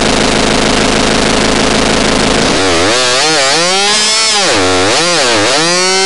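Synthesized chainsaw-like effect. It is a dense, steady, buzzing drone for the first two and a half seconds, then turns into a harsh synth tone whose pitch swoops up and down about once a second.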